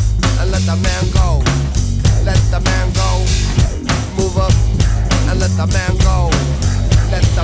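Alternative rock music: a drum kit keeping a steady beat over a heavy, repeating bass line, with short falling slides recurring throughout.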